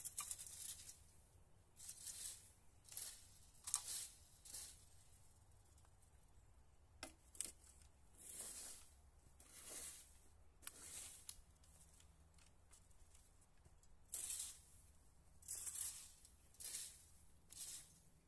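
Rake tines scraping and dragging over wood chips and forest-floor debris on bare dirt, in a series of short, irregular strokes with brief pauses between them.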